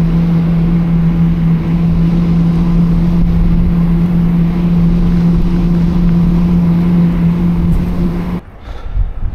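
An engine running at a steady, unchanging speed, a constant hum over a rush of noise, which cuts off abruptly about eight seconds in.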